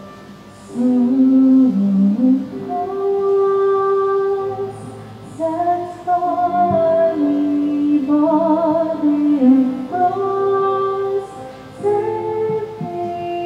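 A woman singing a slow melody over instrumental accompaniment, with long held notes and vibrato.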